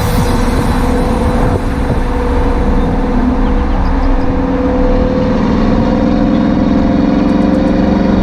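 2021 Dodge Durango R/T's 5.7-litre HEMI V8 running steadily under way, a low exhaust drone whose pitch creeps up slightly in the second half.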